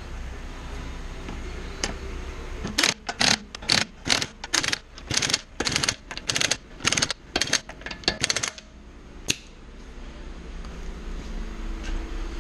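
Hand ratchet wrench clicking in short quick strokes while the wheel bolts are tightened, a run of about eighteen bursts lasting some six seconds, with a single click shortly before and after.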